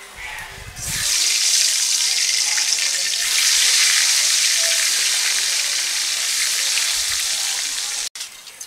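Eggs sliding into hot oil in a karahi and frying, a loud steady sizzle that starts about a second in and cuts off suddenly near the end.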